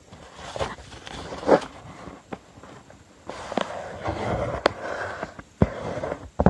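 A sheet of copy paper being folded by hand: rustling and sliding paper as it is folded in half again, with several sharp clicks as the creases are pressed down against the tabletop.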